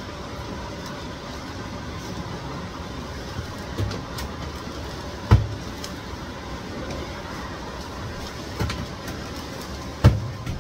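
Metal trays of a cabinet food dehydrator handled and slid into its racks while it is loaded with greens: four sharp knocks, two of them louder, over a steady rushing noise.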